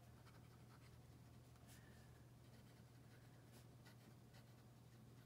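Near silence: faint, scattered scratches of a pen nib writing on paper over a low, steady hum.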